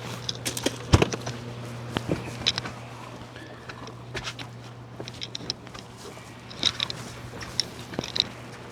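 Scattered knocks, clicks and light clatter of gear being handled in an aluminum jon boat, the loudest knock about a second in, over a steady low hum.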